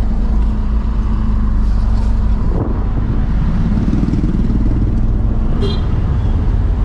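Car driving slowly in town traffic: a steady low rumble of engine and road noise.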